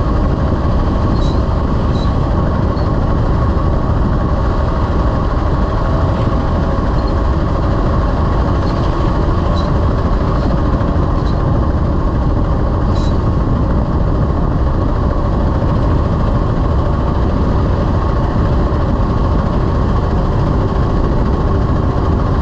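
Heavy-haul semi truck running steadily, a continuous low engine drone and road rumble with no change in pace, and a few faint ticks.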